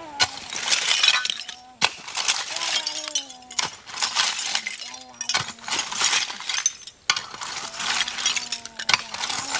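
A rake dragged through leaf litter full of broken glass, the shards clinking and rattling with each pull, a stroke every second or two.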